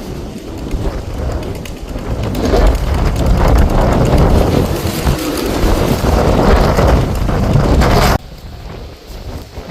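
Strong wind gusting against the microphone, a deep rumbling rush that builds over several seconds and cuts off suddenly near the end.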